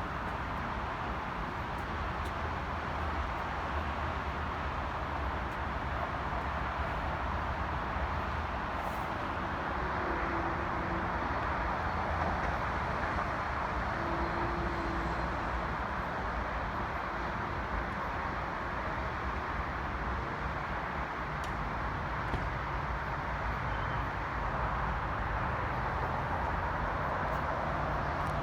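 Steady vehicle noise: a constant low rumble under an even hiss, with no distinct events.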